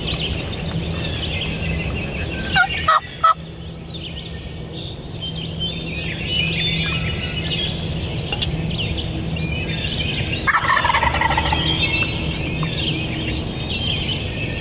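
Wild turkey gobbler gobbling twice, a loud burst of rapid pulses about three seconds in and another gobble about ten seconds in, over steady songbird chirping.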